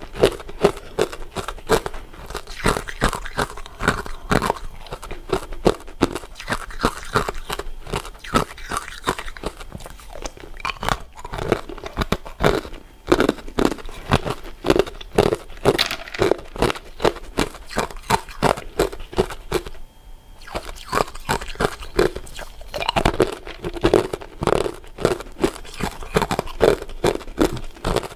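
Crunching and chewing of crisp crystal ice dessert pieces: dense crackling bites follow one another steadily, with a short pause about twenty seconds in.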